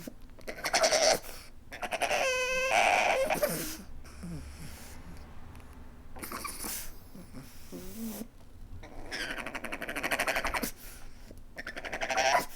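Pug whining and crying in a string of separate vocal bursts, with one longer, higher whine of wavering pitch about two seconds in.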